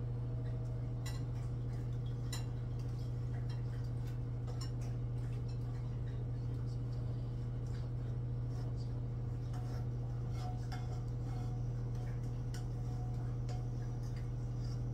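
A steady low hum throughout, with scattered faint clicks and clinks of dishes and cutlery.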